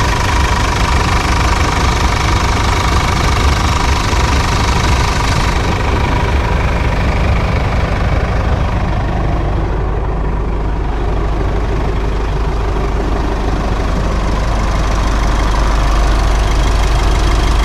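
Mitsubishi Challenger's engine idling steadily just after an oil change, run to circulate the new oil and check for leaks. The sound turns duller about six seconds in, and the low rumble grows louder near the end.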